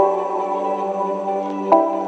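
Soft ambient background music: sustained chords, with a new chord struck at the start and another about a second and three-quarters later.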